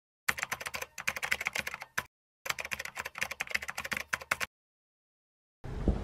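Rapid clicking like typing on a keyboard, in two runs of about two seconds each with a short gap between them, then stopping abruptly.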